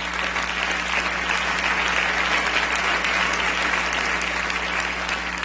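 A large theatre audience applauding, a steady dense clapping throughout.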